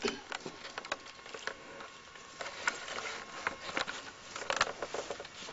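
Scattered light clicks, taps and rustles of a person moving about and handling things in a small room.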